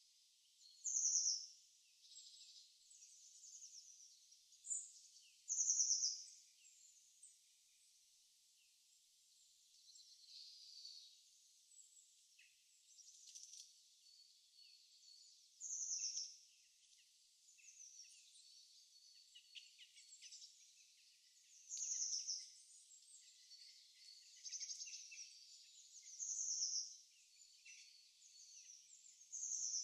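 Birds chirping: a louder short falling call every few seconds, with softer chirps and twitters between, all high-pitched with nothing low underneath.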